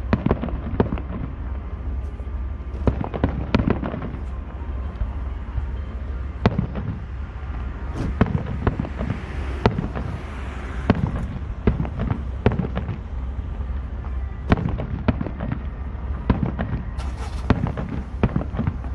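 Distant aerial firework shells bursting, an irregular string of sharp booms every second or so over a constant low rumble. A crackling hiss rises near the middle.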